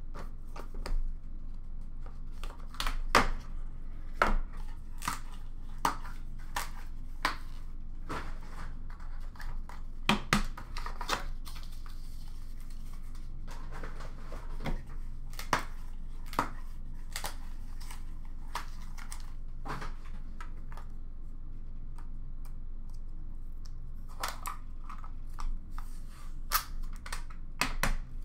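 Hands tearing into and opening a sealed hockey card box: irregular sharp crackles, tearing and clicks of wrapping, cardboard and plastic card cases being handled. There is a quieter stretch in the second half before the clicks pick up again near the end.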